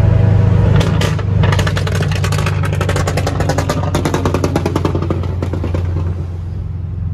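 Car engine running with a steady low exhaust drone. For a few seconds in the middle it is overlaid by a rapid series of sharp crackles.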